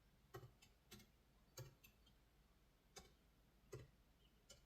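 Faint, scattered clicks of a laptop keyboard: about eight separate key presses at uneven intervals.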